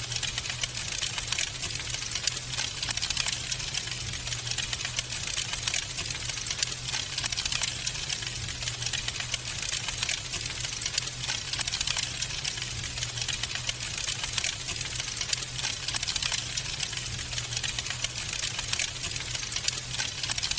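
Wood fire in a fireplace crackling steadily: a dense run of small, rapid, irregular pops and snaps, with a low steady hum underneath.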